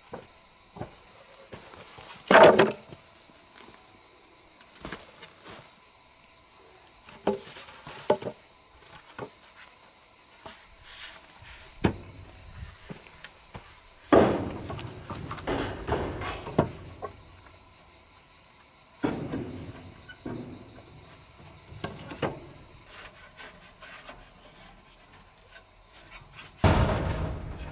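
Wood and stone being handled at a hut doorway: a string of irregular knocks, clunks and scrapes of planks and stones, the loudest about two seconds in, near the middle and near the end. Under it runs the steady high buzz of insects.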